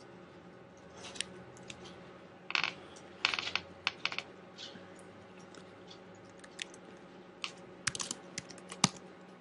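Laptop keyboard keystrokes, a few at a time with pauses between, in small bursts early on and a quicker run of clicks near the end, over a faint steady hum.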